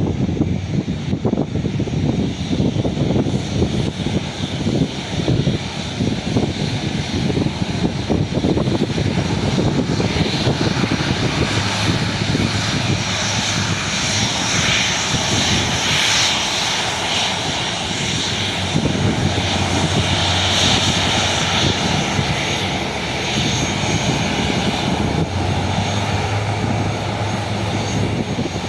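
Jet airliner's engines at takeoff power: a rough low rumble at first, then a loud high-pitched hiss and whine that builds through the middle and eases slightly near the end.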